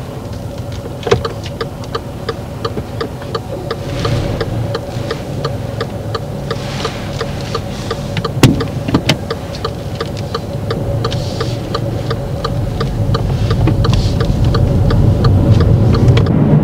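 A car's turn indicator ticking steadily, about three clicks a second, over the engine and road noise of the car pulling away from the kerb, which grow louder as it speeds up.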